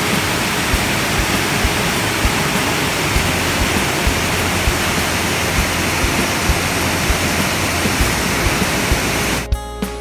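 Waterfall rushing over rocks: a steady, dense hiss of falling water, with music underneath; the water sound cuts off abruptly near the end.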